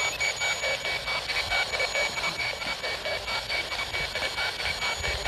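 Ghost-hunting spirit box sweeping through radio stations: a steady hiss of static broken into short choppy blips several times a second, with snatches of sound and a faint steady high tone, played while waiting for an answer to a question.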